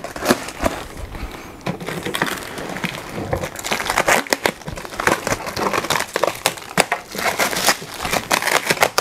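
Plastic sheeting and bubble wrap crinkling and rustling as they are pulled off, with white foam packing blocks rubbing and crunching, in a dense run of irregular crackles.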